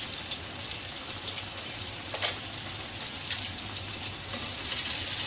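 Chicken in a thin soy-sauce gravy boiling hard in a shallow pan, with a steady bubbling sizzle. There is a single light knock about two seconds in.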